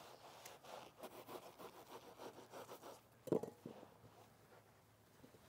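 A knife sawing through a Rockwool stone wool insulation board, faint rasping strokes at about four a second, with one louder knock a little over three seconds in.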